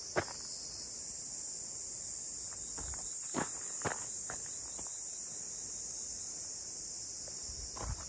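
Steady high-pitched insect chorus from the forest, with a few footsteps on a gravel track: one just after the start and a couple more around the middle.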